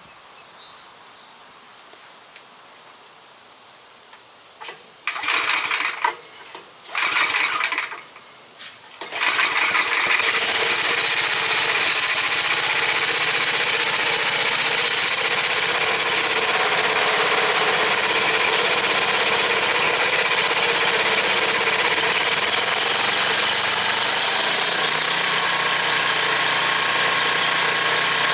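Tecumseh 8 hp single-cylinder engine on a cordwood buzz saw starting up: it fires in three or four short bursts that die away, then catches about nine seconds in and runs steadily at a constant speed, driving the saw through its belts.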